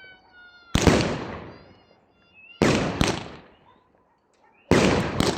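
A 25-shot, 30 mm consumer firework cake firing: a loud bang about every two seconds, the last two close together near the end, each trailing off in a second-long hissing crackle.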